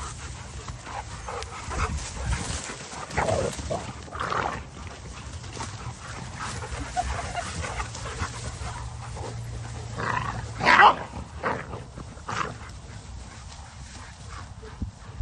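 Several dogs playing and chasing one another through tall grass, giving a few short barks and noises; the loudest comes about two-thirds of the way through.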